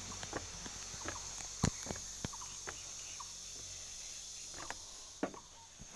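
A steady high-pitched insect chorus, with irregular sharp knocks of footsteps on the treads of an outdoor stairway.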